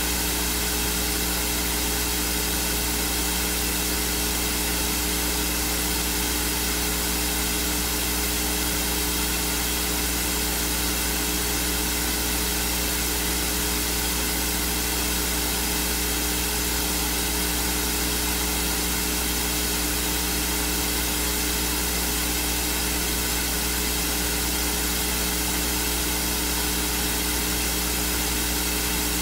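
Steady loud hiss with a constant electrical hum underneath, unchanging throughout and with no voice coming through: an audio signal fault in the microphone feed, masking the spoken reading.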